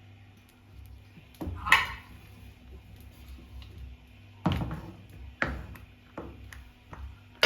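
Cooking utensil knocking and clattering against a pot while pap is being mixed. There is a sharp ringing clank about a second and a half in, then several lighter knocks spaced about a second apart.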